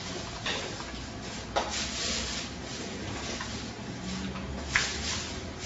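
Rubbing, rustling handling noise over a low steady hum, with two sharp clicks, one about a second and a half in and a louder one near the end.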